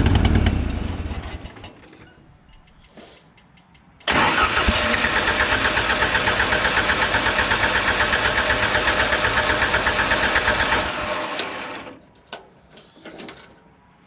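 The wood chipper's flat-four engine runs down and stops. About four seconds in it is turned over again, with an even, pulsing sound, for about seven seconds before it dies away. It keeps stalling from a fuel problem, which the owner puts down to a dirty carburettor.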